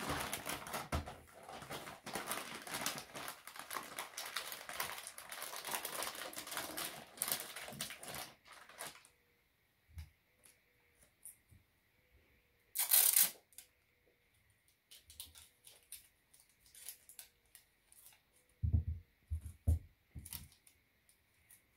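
Wrapping paper crinkling and rustling as a box is wrapped, for about nine seconds. Then it goes mostly quiet, with one short loud rip about thirteen seconds in, like sticky tape being pulled off its roll, and a few soft knocks near the end.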